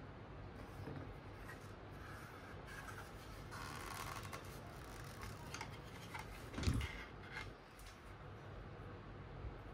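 Handling noises: rustling, rubbing and light clicks, with one louder thump a little before 7 seconds.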